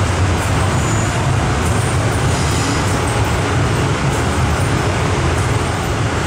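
MTR M-Train (Metro-Cammell electric multiple unit) running through the station without stopping, heard from the platform behind the screen doors: a steady low rumble of wheels and running gear.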